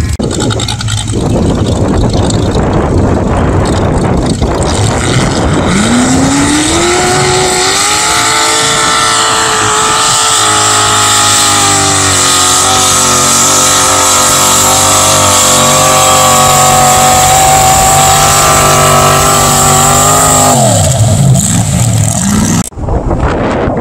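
A mud-bog pickup truck's engine running rough, then revving up hard about six seconds in. It is held at high revs for about twelve seconds as the truck churns through the mud pit, then drops off sharply. Near the end the sound changes abruptly.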